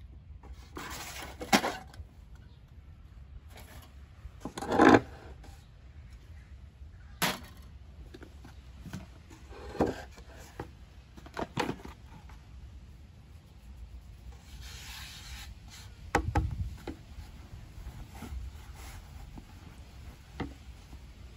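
Hands kneading and turning bread dough in a plastic bowl: irregular rubbing, squishing and scraping strokes, the loudest about five seconds in, and a dull thump about sixteen seconds in.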